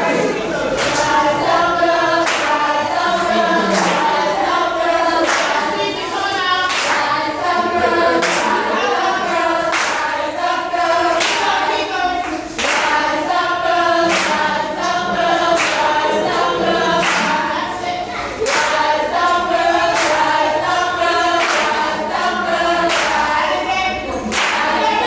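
A group of students singing together in chorus, unaccompanied, with steady rhythmic hand claps keeping the beat.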